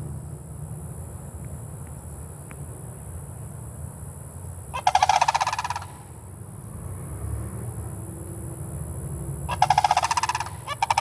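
Sandhill cranes honking: two loud rattling calls about five seconds apart, each lasting about a second, with a third just starting at the end.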